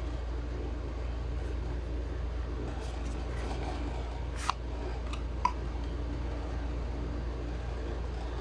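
Cardboard packaging being handled as an inner tray is slid out of its box sleeve, with two light clicks about a second apart midway through. A steady low hum runs underneath.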